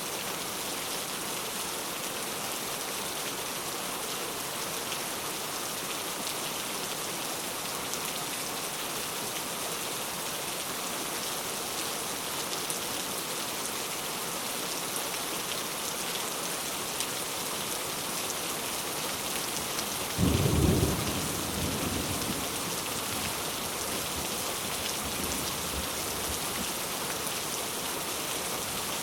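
Heavy rain falling steadily. About twenty seconds in, a sudden clap of thunder with a short low rumble that dies away over a couple of seconds.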